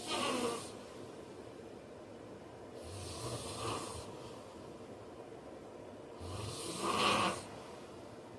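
A man snoring in his sleep, about one snore every three seconds, each a low rumble giving way to a hiss. The snore near the end is the loudest.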